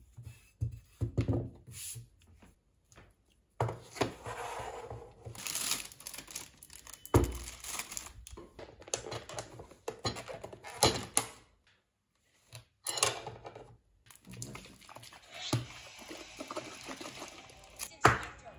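Handling noises from unpacking takeaway food: a thin plastic carrier bag crinkling and rustling, and plastic food containers and a cup being set down with a series of knocks and thunks.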